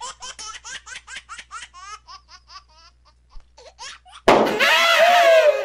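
A person laughing hard in quick, repeated bursts, about five a second, that trail off. About four seconds in comes a sudden loud, drawn-out cry whose pitch falls slightly.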